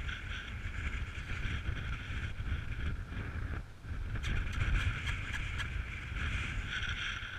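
Gale-force wind buffeting the microphone: a gusty low rumble with a steady hiss above it. A few light clicks and rattles come about four to five and a half seconds in.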